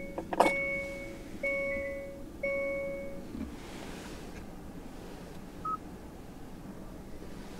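Electronic dashboard chime of a 2022 Hyundai Elantra: the same steady tone sounds three times about a second apart, just after a sharp click, then a single short faint beep.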